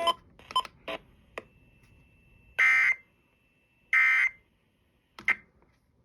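Emergency Alert System digital data tones (SAME/AFSK): three short, harsh, screechy bursts about 1.3 s apart, the third fainter. Their shortness fits the end-of-message code that closes the alert broadcast. A few short clicks come in the first second and a half.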